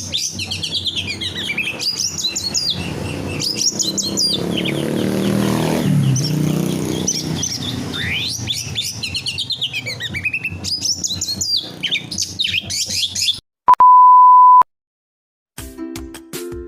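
A songbird singing loud, fast runs of chirps and whistled trills, with a low rumble underneath around the middle. Near the end the song cuts off, a steady beep sounds for about a second, and after a short silence music starts.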